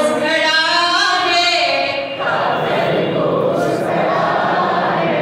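A group of adults singing together in chorus, a children's action song. About two seconds in, the clear tune gives way to a denser blur of many voices.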